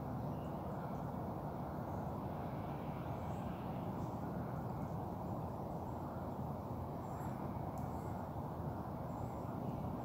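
Steady rush of a broad, free-flowing river, an even low noise without pauses, with a few faint high bird chirps over it.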